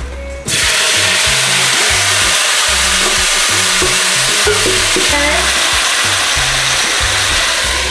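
Seasoned chicken pieces with vegetables tipped into a hot pot, setting off a loud, steady sizzle that starts suddenly about half a second in.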